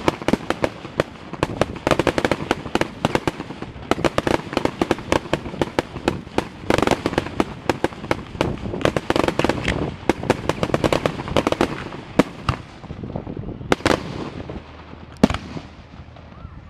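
Aerial fireworks display: a dense, rapid crackle of many sharp bangs from bursting shells. It thins out in the last few seconds, with two big single bangs near the end.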